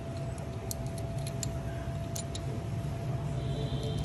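A few light metallic clicks and ticks as a small bolt and spring hook of a motorcycle centre stand are handled and fitted by fingers, most of them in the first half. A steady low hum runs underneath.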